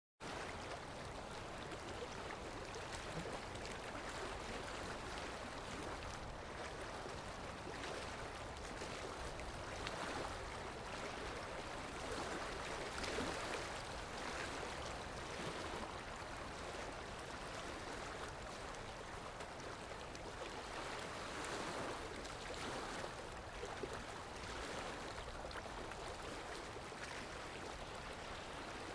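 Muddy floodwater of a river in flash flood, rushing in a steady, churning roar that swells and eases slightly.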